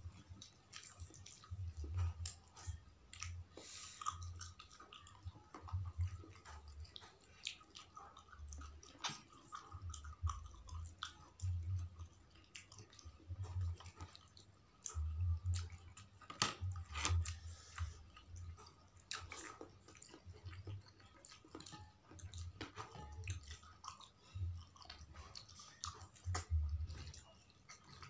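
Two people chewing and eating curried snapper head and rice with their hands: wet chewing mouth sounds with frequent short sharp clicks and low thuds throughout.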